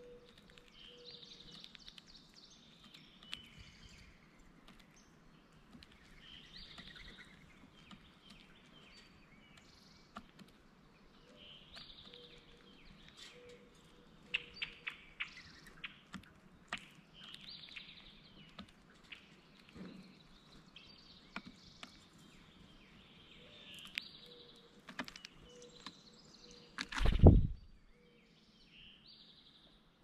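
Red-bellied woodpecker pecking at seeds and peanuts on a mesh platform feeder, giving sharp taps and clicks that come thickest in the middle. Other birds sing short phrases every few seconds in the background. About 27 s in there is a loud, brief flutter-thump as the woodpecker leaves the feeder.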